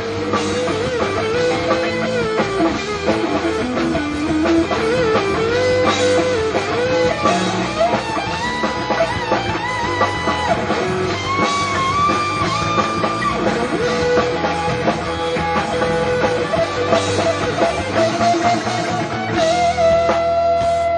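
Rock band playing an instrumental break: an electric guitar plays a bending lead melody over a drum kit.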